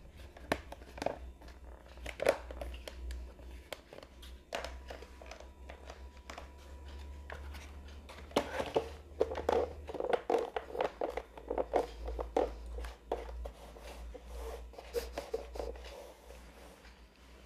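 White plastic panels of a Napolly locker cabinet being handled and fitted together: repeated hard plastic clicks, knocks and clatter, busiest about halfway through.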